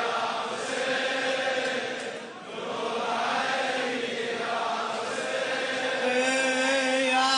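Male voices chanting a slow Shia latmiya lament refrain with long held notes. The chant dips briefly about two seconds in.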